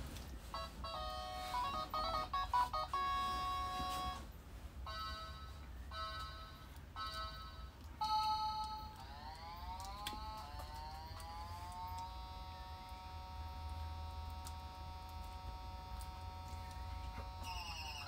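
Synthesized electronic music: a quick run of notes, a few short repeated beeps, then rising tones that settle into a long held chord that falls away near the end.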